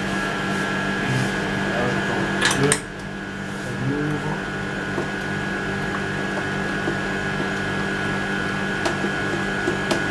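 Ice-cream batch freezer running with a steady motor hum as its dasher pushes freshly churned ice cream out through the front door chute into a tub. A couple of sharp clicks about two and a half seconds in.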